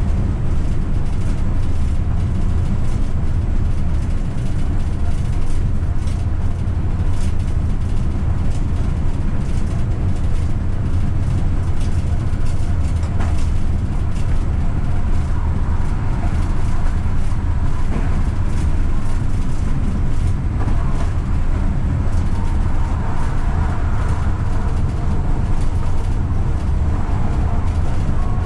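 AVG Stadtbahn tram-train running steadily along the track at speed, a loud, even rumble of wheels on rail heard from inside the driver's cab, with a faint whine coming in about halfway.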